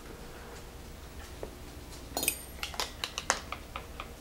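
Light clinks of a metal fork against a ceramic dinner plate: quiet at first, then a scatter of small sharp clicks from about halfway through.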